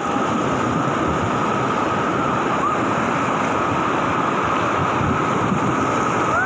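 Whitewater rapids rushing steadily over and around river boulders, heard from a raft in the middle of the churning water.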